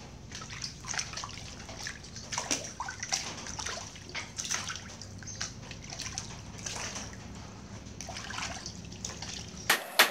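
Water sloshing and splashing as raw chicken pieces are rinsed by hand in a stainless steel bowl, with irregular splashes and drips as pieces are lifted and dropped back. Two sharp clicks near the end.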